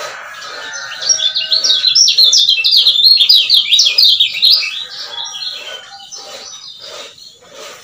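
Caged male lemon-bellied white-eye (kecial kuning) singing: about a second in it breaks into a loud, fast run of high, sweeping chirps lasting about three and a half seconds, then goes on with softer, spaced chirps.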